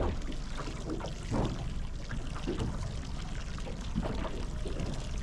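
Small waves lapping and sloshing against the side of a drifting boat in irregular slaps, over a low steady rumble.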